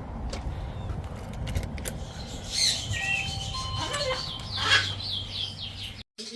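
Caged pet-store birds calling: whistled glides and notes, then a quick run of about half a dozen repeated chirps, over a low rumble. The sound cuts off suddenly near the end.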